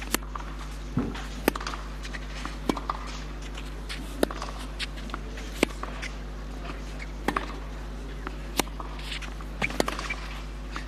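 Tennis ball struck back and forth in a baseline rally on clay, a sharp pock of racket on ball about every second and a half, about eight shots in all. A steady low hum runs underneath.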